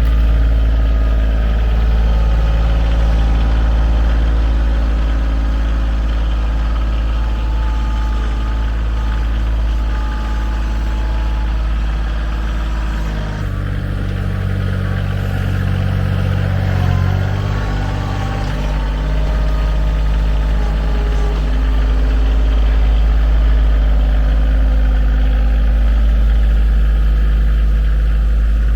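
A heavy engine running steadily. Its note changes partway through, as under a shift in load, then settles back to its earlier pitch.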